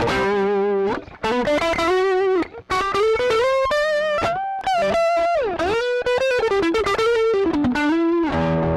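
Electric guitar played through a NUX Horseman, a Klon-style light overdrive pedal, giving a lightly driven tone. It plays a single-note lead line with vibrato and bent notes, one dipping and rising near the middle, with short breaks about a second in and near two and a half seconds.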